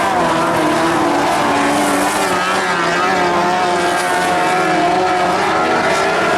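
Several Lightning Sprint race cars' engines running on the speedway track, several overlapping pitches wavering up and down as the cars rev and back off.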